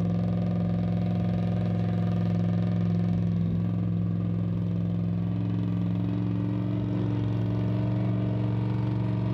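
Vehicle engine running steadily at an even pitch, with no rise or fall in revs and a slightly higher tone joining about halfway through.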